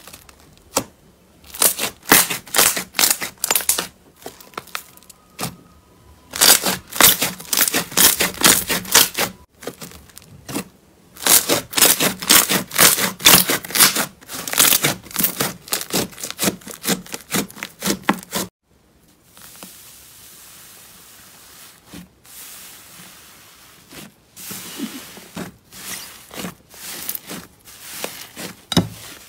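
Glossy glitter slime being pressed and stretched by hand, crackling in quick runs of sticky pops and clicks. Partway through it gives way to the softer, quieter squish of a matte mint-green slime being squeezed, with scattered pops.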